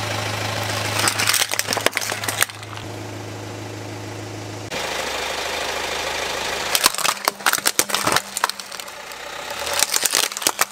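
Car tyre rolling over hard plastic toy robots and crushing them, a burst of sharp cracks and crunches about a second in and another, longer run from about 7 s to near the end. A car engine idles steadily underneath, clearest in the first half.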